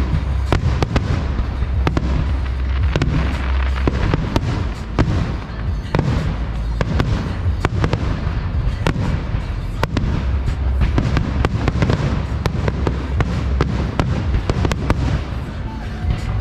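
Fireworks display going off in a dense barrage: many sharp bangs and reports, several a second, over a deep rumble.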